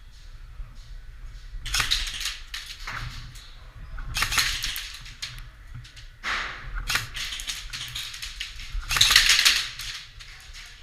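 Airsoft gun firing four short bursts of rapid clicking shots, about two, four and a half, six and a half and nine seconds in.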